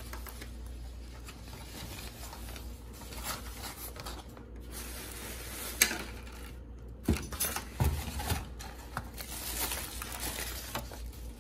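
Clear plastic takeout containers and paper napkins being handled: crinkling and rustling, with a sharp click about six seconds in and a few dull knocks a little after.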